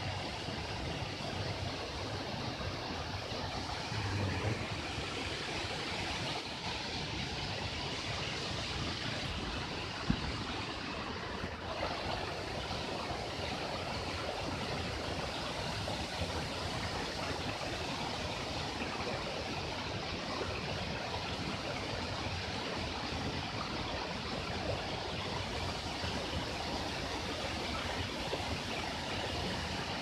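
Steady rush of water from a small waterfall and a rocky mountain stream, with a single sharp click about ten seconds in.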